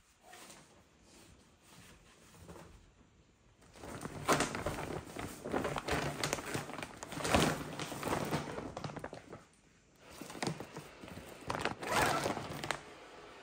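Large woven plastic tote bag rustling and crinkling as things are packed into it, with soft knocks. It starts about four seconds in and comes in two stretches with a short pause between them.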